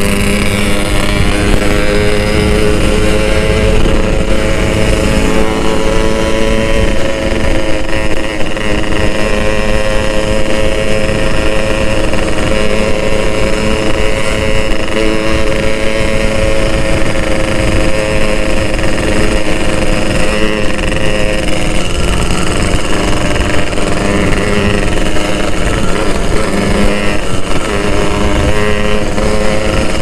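Two-stroke Yamaha motorcycle engine running at a steady cruise, heard from the rider's seat: an even, buzzing exhaust note that holds its pitch, easing briefly about two-thirds of the way through.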